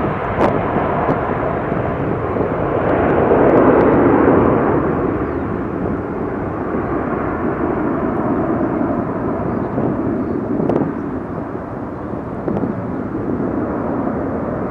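Boeing 757-200's twin turbofan engines at takeoff thrust as the airliner climbs away. The jet noise swells about three to four seconds in, then slowly fades and grows duller as it recedes.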